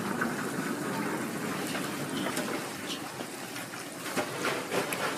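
Hotteok frying in shallow hot oil on a griddle: a steady sizzle with crackling, broken by a few short sharp ticks.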